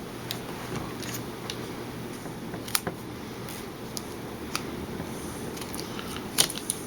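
Scattered small clicks and taps from handling the camera's small plastic and metal parts while the LCD screen is worked out of the body, over a steady low background hum.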